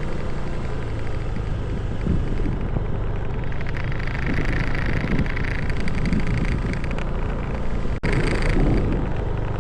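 Motor scooter riding along, its engine running steadily under wind noise on the microphone, with a brief break about eight seconds in.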